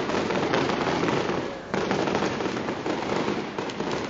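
Fireworks display: a dense, continuous crackle of many overlapping bangs, easing off briefly and then bursting back in with a fresh loud volley about a second and a half in.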